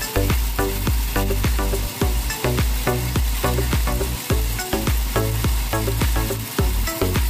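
Background music with a steady beat, about three beats a second, over the steady noise of an engine-driven goat-manure grinder running and throwing out ground manure.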